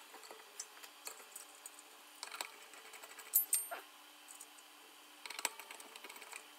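Light clicks and taps of a Noctua fan and its mounting screws being handled and positioned on a finned metal heatsink, with a sharp metallic click and brief ringing about three and a half seconds in and a small cluster of clicks near the end.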